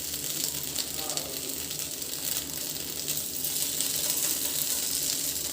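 Chicken breast pieces shallow-frying in butter in a pan: a steady sizzle, with a few light clicks as the pieces are turned over.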